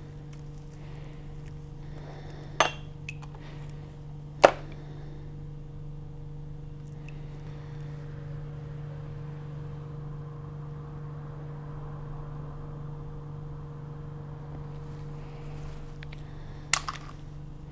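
A steady low electrical hum with a few sharp plastic clicks from micropipette and labware handling while loading an agarose gel: one a couple of seconds in, another about two seconds later, and a quick double click near the end.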